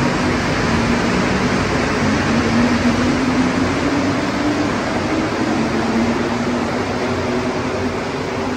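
A rubber-tyred Montreal Metro train running past the platform: a loud, steady rumble and rush of air with a low humming tone that drifts slightly in pitch.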